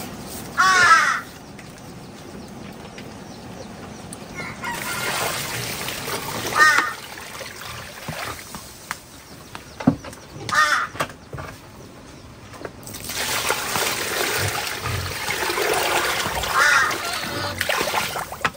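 Harsh bird calls, four short ones spread through, over stretches of a steady rushing hiss.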